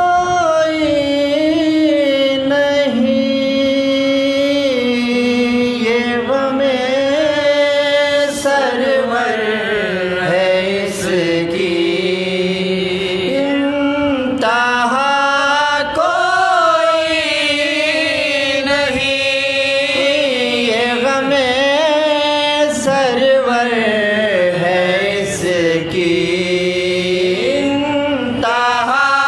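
Male voices chanting soz, an unaccompanied Urdu lament for Imam Husain, in slow, long held notes that waver and glide between pitches.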